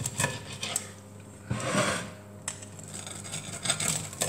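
Pizza wheel cutter rolling through a crisp, crunchy pizza crust and scraping on the plate beneath, with a longer crunching stroke about one and a half seconds in.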